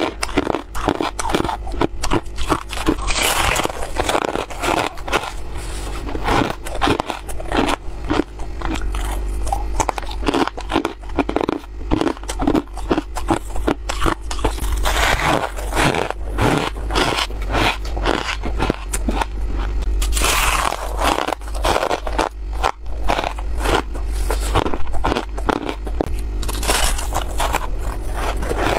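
Close-miked crunching and chewing of mouthfuls of freezer frost, many crisp crackles in quick succession, with fingers scraping and scooping the loose frost in the bowl.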